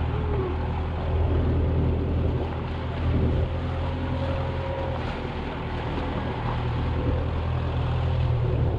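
Motorboat engine running steadily under way, a constant low hum, with the rush of churning water from the boat's wake.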